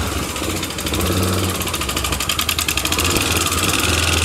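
Honda CBX 250 Twister's air-cooled single-cylinder engine idling steadily, with a fast tec-tec-tec ticking over it that sounds like valve tap; the owner says this noise only looks like valve tapping and is not the valves.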